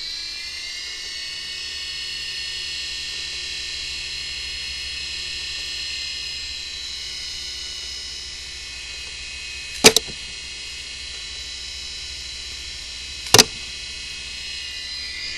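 Small electric motor and rotor of a toy remote-control helicopter running with a steady high-pitched whine. Two sharp clacks cut in, about ten seconds in and again some three and a half seconds later.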